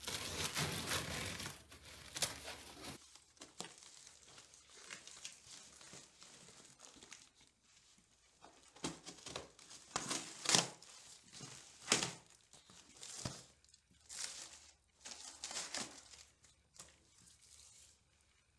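Cardboard shipping box being torn open by hand: a dense stretch of ripping and crumpling for the first few seconds, then a series of separate rips and rustles as the cardboard is pulled away.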